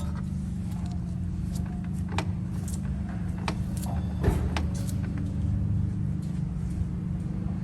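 Car running with a steady low drone and scattered sharp clicks.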